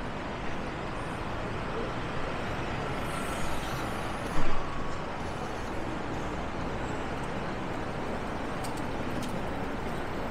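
Street traffic: steady road noise of passing buses and cars, with a short loud burst about four and a half seconds in.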